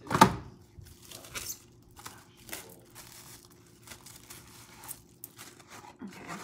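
Plastic cling wrap crinkling and rustling as it is handled and bunched up by hand, with a louder handling noise right at the start followed by scattered small crackles.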